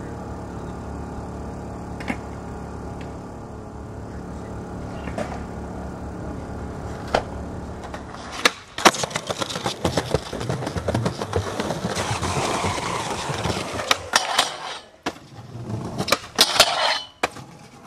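Skateboard wheels rolling over pavement, with sharp clacks and impacts of the board, from about halfway through. Before that, a steady low hum.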